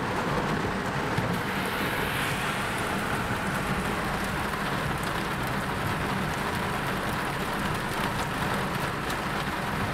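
Heavy rain falling on a car's roof and windscreen, heard from inside the cabin as a steady hiss with scattered drop ticks, over the low hum of the car in slow traffic.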